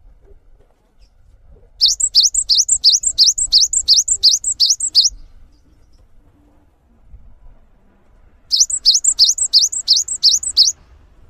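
Cinereous tit (gelatik batu) singing two runs of quick repeated notes, each note sweeping up in pitch, about four a second. The first run lasts about three seconds and the second, near the end, about two.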